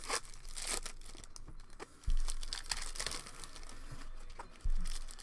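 Foil trading-card pack wrappers crinkling and tearing as packs are opened by hand, with two dull thumps, about two seconds in and near the end.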